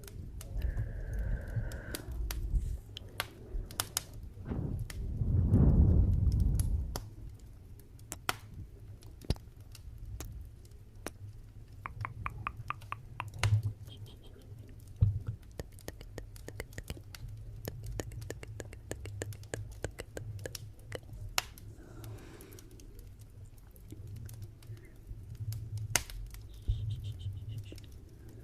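Wood fire burning in a fireplace: irregular crackles and sharp pops over a steady low rumble, with a louder surge of the fire about five to six seconds in.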